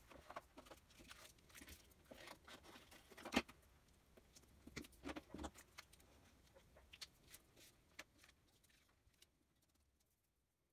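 Faint rustles and small taps of paper and card being handled on a tabletop, with one sharper knock about three and a half seconds in. It dies away to near silence near the end.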